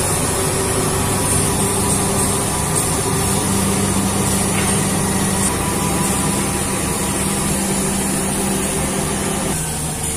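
Crawler bulldozer's diesel engine running steadily as the dozer pushes soil with its blade. The engine note drops slightly near the end.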